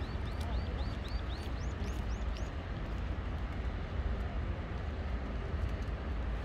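A small bird gives a quick run of about ten short, high chirps, about four a second, the last few higher, ending about two and a half seconds in, over a steady low rumble.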